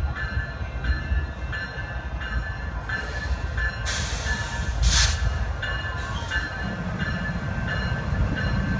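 A train rolling through with a low rumble, while a bell-like tone repeats about twice a second. A loud hiss rises about three seconds in and fades after about five.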